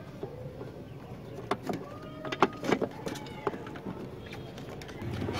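Plastic clicks and scrapes of a turn-signal bulb socket being worked and twisted into the back of a Mitsubishi Strada's front lamp housing, with a cluster of sharp clicks in the middle. A low steady hum comes in near the end.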